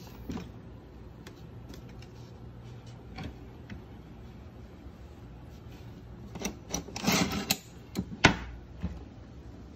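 Light clicks and knocks of a wooden board and a metal-framed camping box being handled. A few scattered ticks lead into a dense run of clicks, then one sharp knock near the end.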